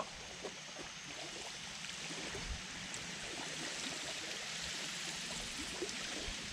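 Steady rush of water flowing below a dam, with a few faint ticks and knocks.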